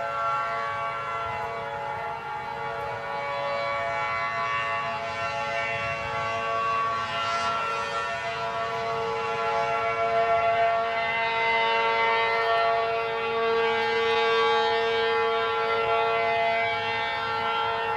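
Outdoor civil defence (tornado warning) siren sounding a steady, unbroken tone that holds its pitch, its loudness swelling and easing slowly.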